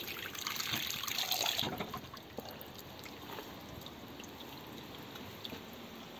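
Water from a garden hose being flushed through an old car radiator, spilling out of the filler neck and the overflow pipe and splashing onto the ground. It is louder for the first two seconds, then settles to a steady trickle.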